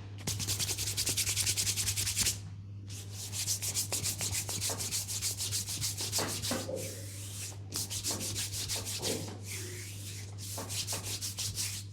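Hands rubbing briskly back and forth in a massage, fast, several strokes a second, in runs of one to two seconds with short breaks between. A steady low hum runs underneath.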